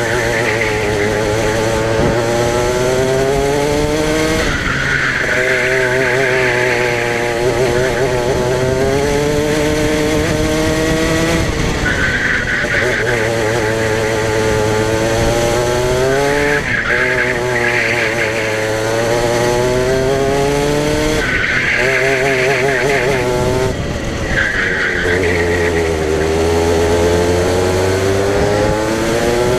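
Racing kart engine heard onboard, its pitch climbing through each straight and dropping sharply about six times as the driver lifts and brakes for corners. Bursts of tyre squeal come through the corners.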